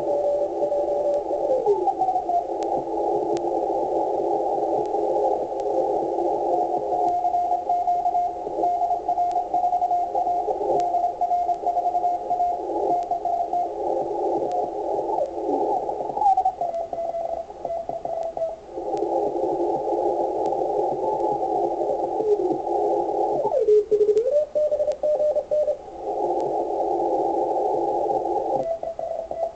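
Icom IC-7600 receiver audio in CW mode through its 500 Hz filter: many Morse code signals beeping over hiss that is held to a narrow band of pitch. Every so often the tones slide in pitch as the dial is tuned down across the 80-metre band.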